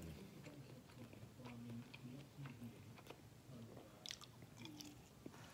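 Soft close-up chewing and biting, with wet mouth clicks and smacks, as a boiled small red potato from a seafood boil is eaten; a bite lands about four seconds in.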